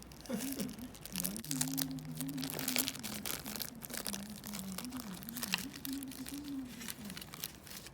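Packaging being opened: paper and plastic wrapping crinkling and tearing in quick irregular crackles, over a low, softly wavering melodic tone.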